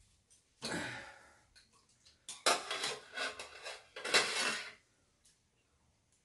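A person slurping ramyeon noodles, three long noisy sucks of air and noodles, the middle one broken into several quick pulls.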